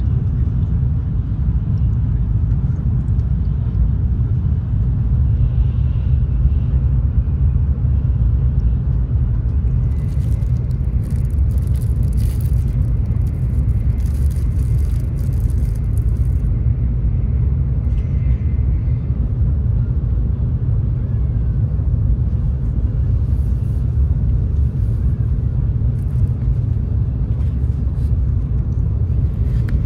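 Steady low rumble inside a Shinkansen bullet train cabin. From about ten seconds in, for some six seconds, and again briefly later, paper and plastic wrappers crinkle as they are handled.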